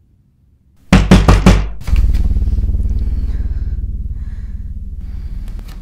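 Four loud bangs in quick succession, like heavy knocks, followed by a loud low rumbling drone that slowly fades: a horror-film jump-scare sound effect.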